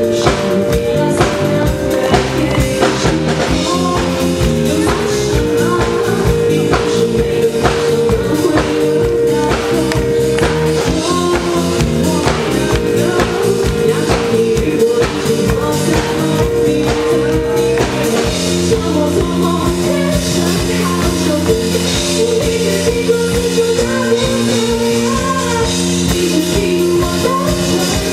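Live piano-rock trio playing a song: a drum kit beating steadily under sustained keyboard and bass chords, with a singing voice. The chords change at about 18 seconds in.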